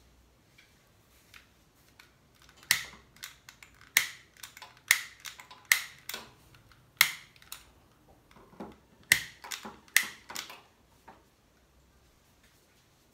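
Sharp, irregular clicks and knocks of hard objects in a kitchen, about fifteen over some eight seconds, starting a couple of seconds in, each with a brief bright ring.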